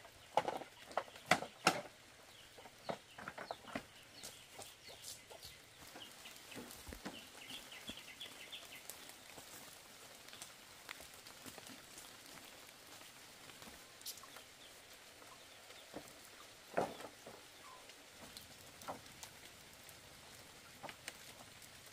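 Chickens clucking, with a cluster of sharp knocks in the first two seconds and another loud knock about seventeen seconds in.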